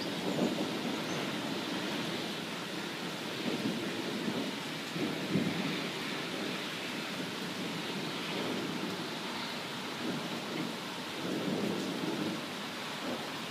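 Heavy rain falling steadily, with low rumbles of thunder that swell and fade every few seconds.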